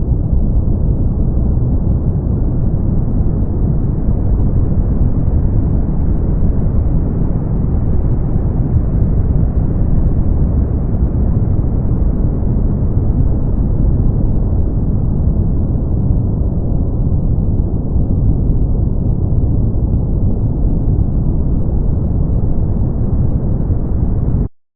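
Brown noise: a steady, deep hiss with most of its weight in the low end and little above. It cuts out abruptly to silence just before the end.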